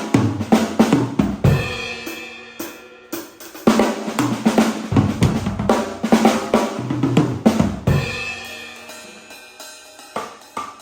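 MK drum kit with stock heads and cymbals being played raw: runs of quick strokes across snare, kick and cymbals. Twice the playing stops and the kit is left ringing and dying away, and the strokes start again near the end.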